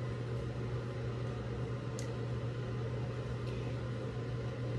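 Steady low hum and whir of a fan motor, with one faint click about two seconds in.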